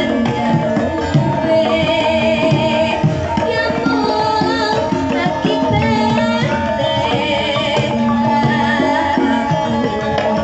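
A Javanese gamelan ensemble in pelog tuning plays steadily, with kendang drum strokes, while a female sinden sings a vocal line with a wavering vibrato that comes in twice.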